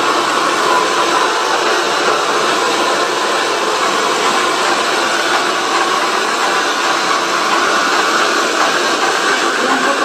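A 2,300-watt handheld hair dryer running steadily, blowing air with an even hiss.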